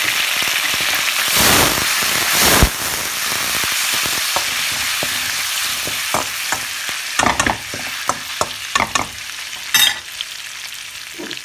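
Minced ginger and garlic sizzling in hot oil in a wok, with soy sauce and vinegar just added, flaring louder twice in the first few seconds. In the second half a spatula clicks and scrapes against the pan as it stirs, and the sizzle dies down near the end.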